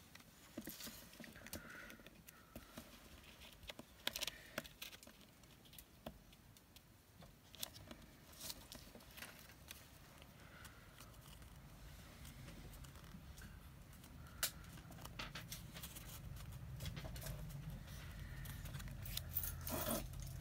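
Quiet handling of a paper tag and washi tape on a cutting mat: scattered small taps, clicks and paper rustles as the tape is pressed down. A low hum grows in the second half.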